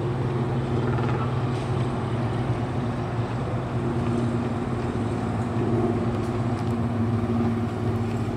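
A boat's engine running steadily with a low, even hum.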